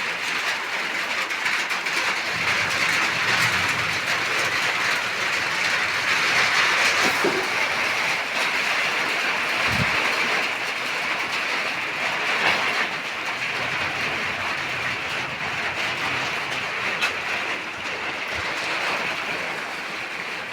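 Steady heavy rain falling, an even hiss with a few scattered taps.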